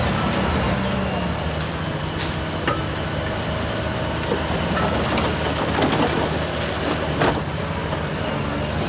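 Diesel engine of heavy earthmoving machinery running steadily, with a few short sharp clanks.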